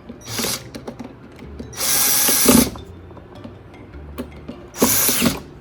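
Power drill/driver running in three short bursts, the middle one the longest, driving screws to fasten a handle onto a portable fridge.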